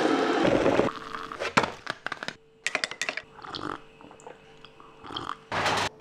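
Foil-lined coffee bag rustling as ground coffee is scooped out, then scattered light clicks and knocks over a faint steady hum, and a short loud rush of noise near the end.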